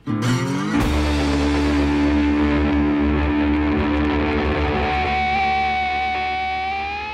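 Background rock music on electric guitar. A chord is struck and held, a high note comes in about five seconds in and bends upward, and the sound starts to fade out near the end.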